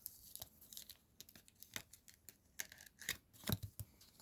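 Trading cards being handled: a run of light clicks, flicks and rustles as the card stock slides and taps together, with a louder cluster about three and a half seconds in.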